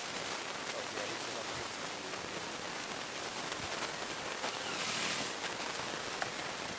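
Steady hiss of noise, swelling briefly about five seconds in, with a couple of faint ticks.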